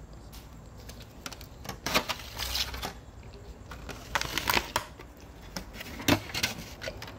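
Clear plastic takeout sushi container crackling and clicking as it is handled. The clusters of clicks come about two seconds in, again around four to five seconds, and once more near six seconds.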